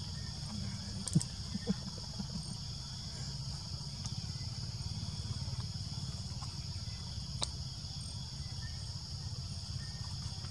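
Steady tropical forest insect chorus, an even high-pitched buzz, over a low steady rumble, with a few brief clicks.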